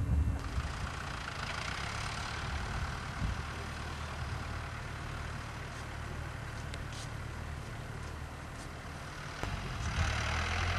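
A steady low mechanical hum with a hiss over it.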